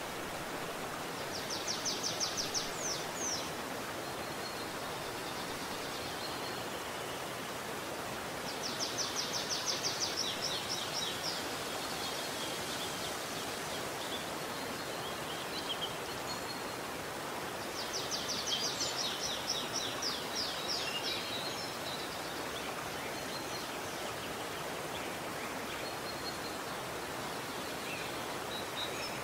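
Shallow woodland stream flowing over rocks: a steady rushing of water. A songbird sings a rapid, high trill three times, each lasting two to three seconds, roughly eight seconds apart.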